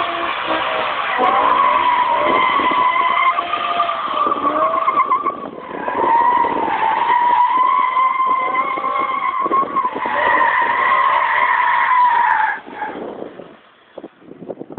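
A BMW's tyres squealing loudly as the car skids, a long wavering screech with the engine revving underneath. The screech dips briefly about five seconds in and cuts off near the end.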